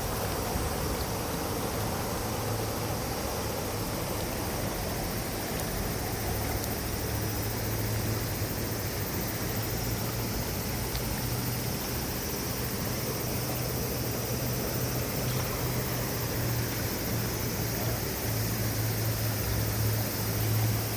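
River water flowing steadily over a shallow bed, a continuous rushing with a strong low rumble underneath.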